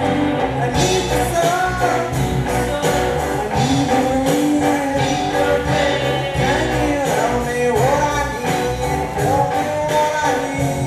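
Live rock band playing: drum kit with regular cymbal hits, electric guitars and bass, and a bending lead melody line over them.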